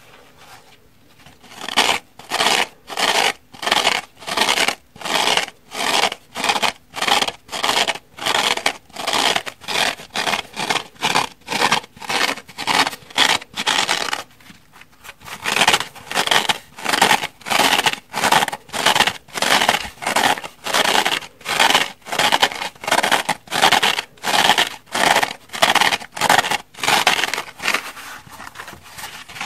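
Fingernails scratching the rough scouring pads of kitchen sponges in quick, even strokes, about two a second, with a short pause a little before halfway.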